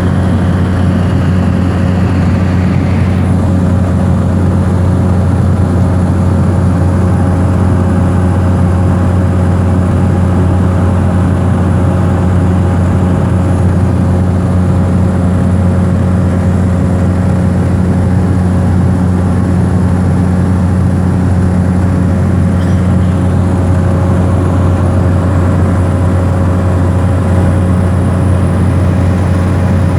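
Steady, loud drone of an airliner's engines heard inside the cabin in flight, a deep even hum with a few faint steady whines above it.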